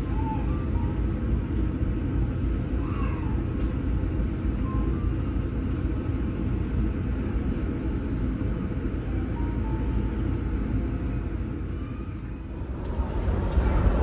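Steady low rumble of a passenger ship under way at sea, its engines and hull droning evenly, with a few faint short tones now and then.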